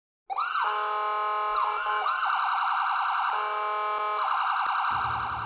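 Emergency vehicle siren, several overlapping wails rising in pitch and holding. It starts suddenly and fades about five seconds in, as a low rumble of room noise takes over.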